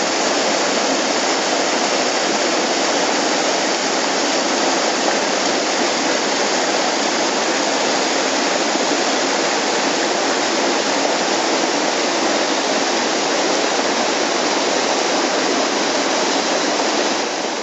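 Waterfall: a mountain stream pouring over rock ledges into a pool, a steady rush of water that begins to fade at the very end.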